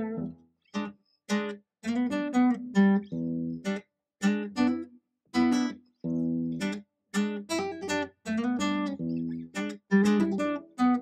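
Acoustic guitar music: a run of plucked notes and chords, each starting sharply and fading.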